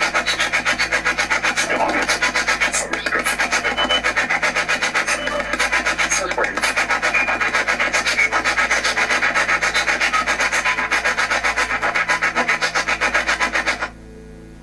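Spirit box sweeping through radio stations: a rapid choppy stream of static and radio fragments chopped into fast, even pulses, several a second. It cuts off suddenly near the end.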